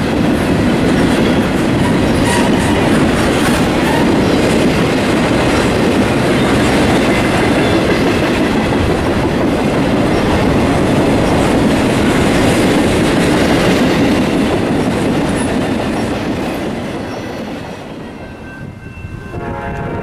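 Intermodal freight train's trailer and container flatcars rolling past with steady wheel-on-rail noise, fading away from about sixteen seconds in as the end of the train goes by. Near the end a train horn starts to sound.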